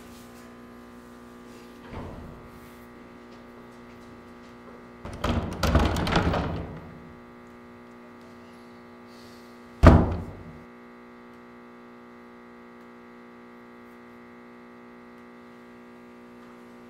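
A door being worked open with a clatter, then shutting with a single heavy thunk about ten seconds in, over a steady low hum.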